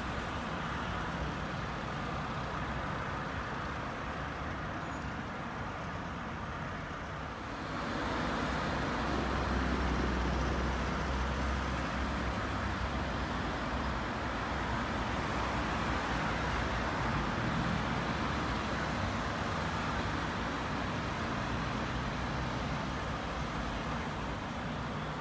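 City street traffic: a steady rush of passing vehicles. About a third of the way in it grows louder, with a deep rumble for a few seconds, as a heavier vehicle passes.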